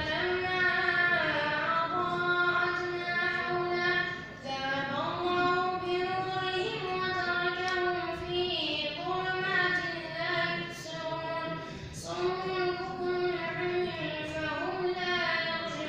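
A boy's voice reciting the Quran in a slow melodic chant, holding long notes that glide between pitches. There are short breaks for breath about four seconds in and again near twelve seconds.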